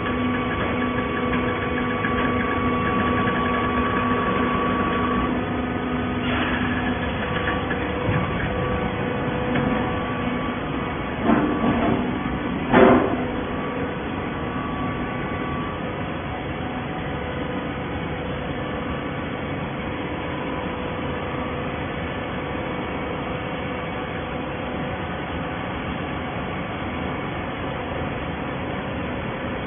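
Automatic horizontal hydraulic baler running: a steady machine hum with a few held tones at first, and two short knocks partway through.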